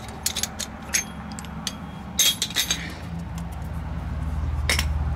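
Light metallic clinks and clicks of hand tools and brake hardware being handled, several in quick succession with short rings, then a single clink near the end. A steady low hum underneath grows louder about three seconds in.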